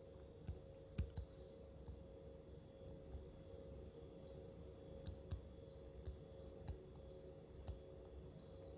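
Faint, irregular clicks of a stylus tip tapping and sliding on a tablet's glass screen during handwriting, over a faint steady hum.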